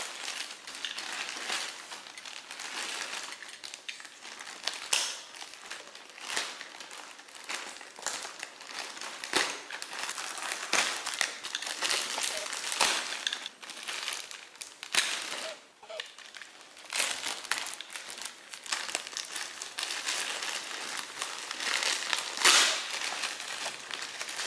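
Keyboard packaging being opened and handled: continuous crinkling and rustling of the wrapping and box, with many sharp crackles throughout.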